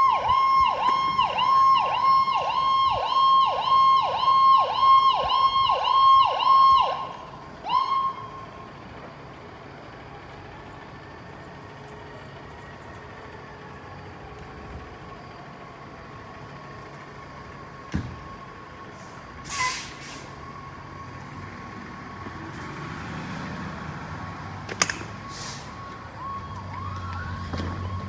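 Fire apparatus electronic siren on a fast yelp, sweeping up and down about two to three times a second, which cuts off about seven seconds in after one last short blip. After that, quieter truck noise with two short bursts of air hiss, like air brakes being set, about two-thirds of the way in and again near the end.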